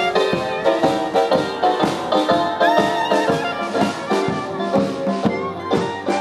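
Small live jazz band playing: clarinet lead over upright bass and drum kit, with a steady beat.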